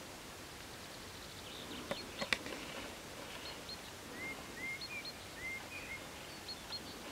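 Faint small birds chirping over a steady hiss: short high chirps, often in pairs, and a few rising calls in the middle, with a couple of sharp clicks about two seconds in.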